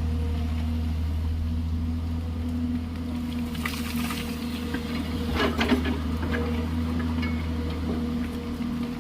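Excavator's diesel engine running steadily under a held low hum. Between about three and a half and six seconds in, a burst of scraping and clattering of rock and gravel, loudest near the middle.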